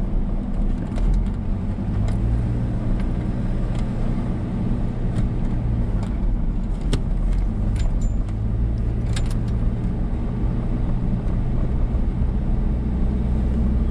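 Car driving along a paved road, heard from inside the cabin: a steady engine hum and tyre rumble, with scattered light clicks and rattles.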